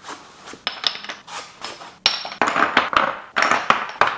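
Glass spice jars with bamboo lids clinking and knocking as they are pulled from foam packaging and set down on the counter: a quick run of sharp knocks and clinks with rubbing and rustling between them.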